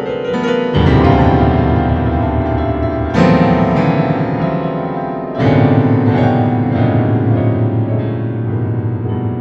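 Slow solo piano-style keyboard music: full chords struck about a second in, again near three seconds and just past five seconds, each left to ring and slowly fade.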